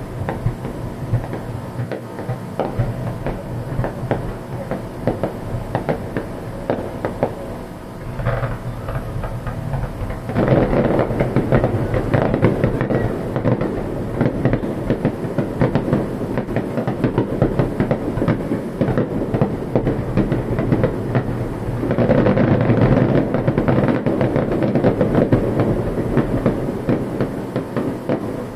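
Fireworks display: a dense run of bursts and crackling. It grows louder about ten seconds in and again about twenty-two seconds in.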